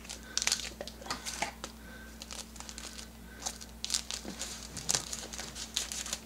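Thin plastic packaging crinkling in short, scattered crackles as it is handled and cut open with scissors.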